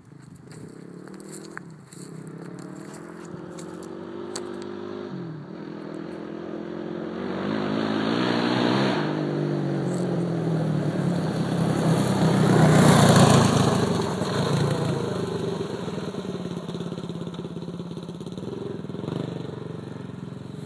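Single-cylinder engine of an EHS-built Honda TRX700XX sport quad, freshly dyno-tuned, accelerating as it comes closer, its pitch climbing and dropping back at each of two gear changes. It is loudest as it passes, about two-thirds of the way through, then fades as it rides away.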